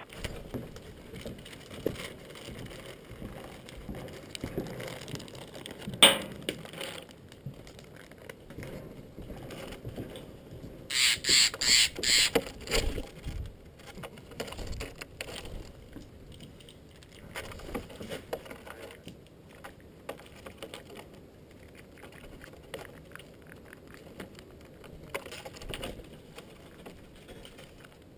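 A Steller's jay gives a burst of about six harsh, rapid calls near the middle. Scattered small clicks and taps run throughout, with one sharp knock about six seconds in.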